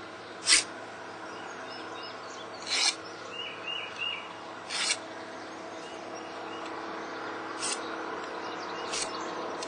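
A steel file rasping across the bevels of a steel twin-blade broadhead in five short, separate strokes spaced one to three seconds apart. The filing takes the flat spots and nicks out of a used blade, bringing both bevels to an edge.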